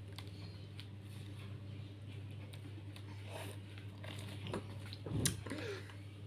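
A toddler licking and sucking on a watermelon ice lolly: faint wet mouth sounds and small clicks, with one louder slurp about five seconds in, over a steady low hum.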